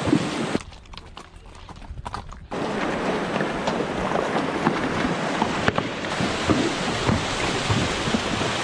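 Horses' hooves clopping and splashing over river stones and gravel, scattered knocks over the steady rush of a mountain river. The sound drops away for about two seconds shortly after the start, then returns.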